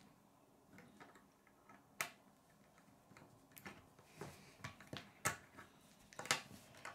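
Hard plastic K'nex rods and connectors clicking and tapping as they are snapped together and handled on a wooden tabletop: a sharp click about two seconds in, two more near the end, and softer ticks between.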